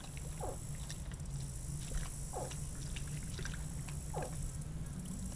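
Short animal calls falling in pitch, repeated at an even pace about every two seconds, over a steady high insect-like buzz. Faint splashing comes from an alligator thrashing a piece of bait in the water.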